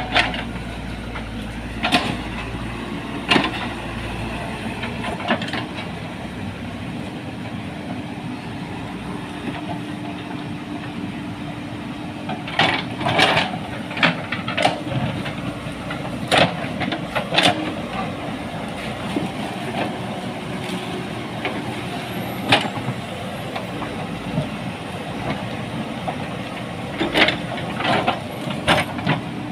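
JCB 3DX backhoe loader's diesel engine running steadily while working, with a deep rumble for the first few seconds that then eases. Repeated sharp knocks and clanks come at irregular moments, bunched around the middle and again near the end.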